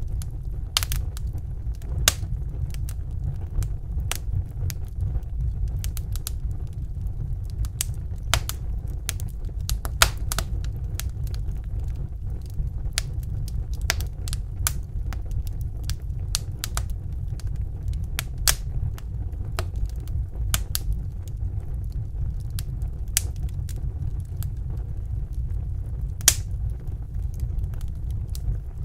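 Fire crackling in a fireplace: irregular sharp pops and snaps, a few louder ones among them, over a steady low rumble of the flames.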